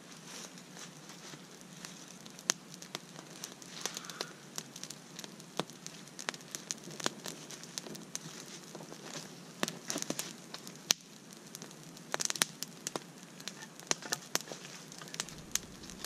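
Newly lit campfire of dry twigs and sticks catching and crackling, with irregular sharp pops over a faint steady hiss.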